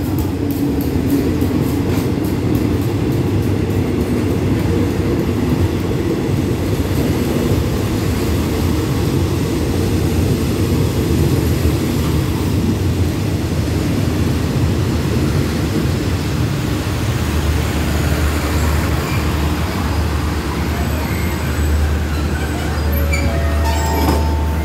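Express passenger train hauled by a GEA-class diesel locomotive, its coaches rolling slowly past with a steady rumble as it pulls in to stop. There is a fast ticking at first that dies away within a few seconds, and a low steady hum grows stronger about two-thirds of the way through.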